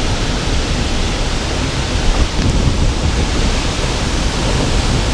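Steady loud rush of a 15-metre waterfall, an even hiss of falling water over a deep, flickering low rumble.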